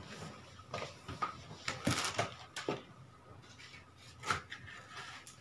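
Scattered light knocks, clicks and rustling of a person moving about and handling things, bunched in the first three seconds, with one more knock a little past four seconds.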